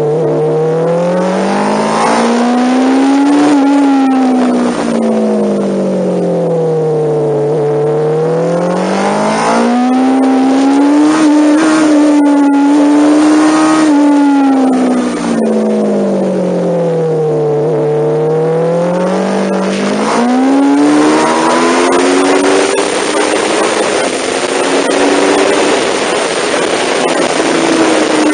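Onboard sound of an MV Agusta Brutale's engine at racing pace, its pitch climbing under throttle and falling off into corners in long smooth sweeps several times. From about two-thirds of the way through, loud wind rush at speed covers much of the engine.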